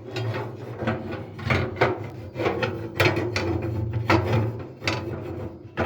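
Steel rack bracket scraping and knocking against the steel inside of a pellet grill's cook chamber as it is worked onto its mounting holes: a run of irregular rubs and light clanks.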